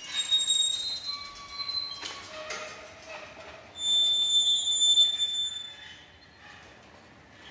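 Jean Tinguely's kinetic scrap-metal sculpture running: wheels and chains turn with irregular metallic clanks and short high squeaks. A louder, longer high-pitched squeal comes about four seconds in, and the machine grows quieter near the end.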